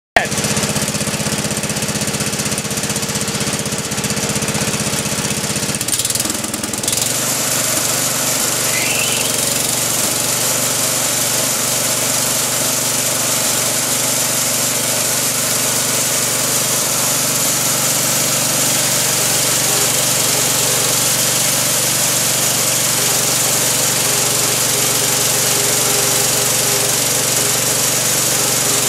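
1985 Wood-Mizer LT-30 portable band sawmill running, its engine droning steadily with the band blade turning. The sound shifts briefly about six seconds in, then holds steady.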